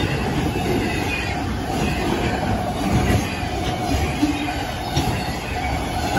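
Enclosed autorack cars of a CSX freight train rolling past: a steady rumble of steel wheels on rail, with a faint steady squeal and a couple of sharp clacks.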